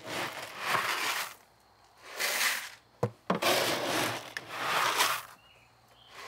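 A plastic feed scoop digging into dry layer feed in a plastic barrel and tipping it into a plastic bucket: several rushing, scraping pours with a sharp knock about three seconds in.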